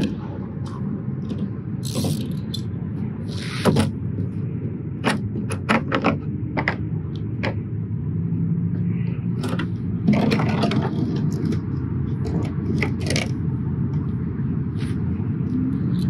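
Scattered clicks, knocks and short scrapes of a plastic oil drain container and tools being handled and set down on pavement, over a steady low rumble of highway traffic.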